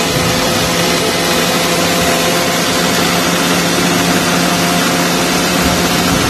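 Electric mixer grinder running steadily at full speed, blending curd, sugar and water in its steel jar for lassi: a loud, even whir with a constant hum under it.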